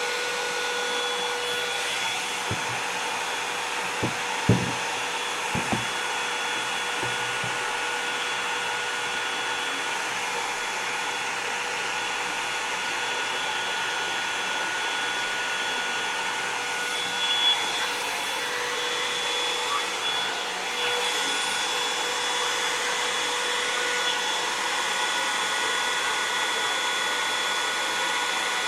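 Revlon One-Step hair dryer brush running steadily, an even blowing rush with a steady motor whine, with a few soft knocks about four to six seconds in.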